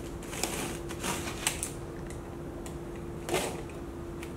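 Box cutter blade slicing through plastic wrap and packing tape on a cardboard box, a string of short, irregular scratches and clicks.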